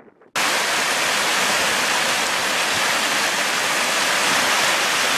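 Meltwater stream rushing under a grit-covered snow crust, loud and steady, starting abruptly a moment in.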